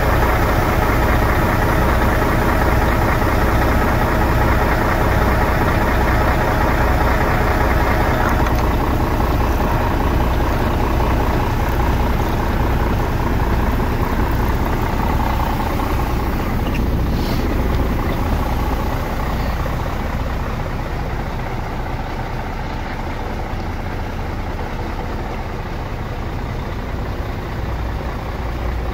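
MAN 19.464 truck's straight-six diesel engine idling steadily, heard close up in the open engine bay. After about eight seconds the higher, clattery part of the sound fades, leaving a steady low drone that grows a little quieter toward the end.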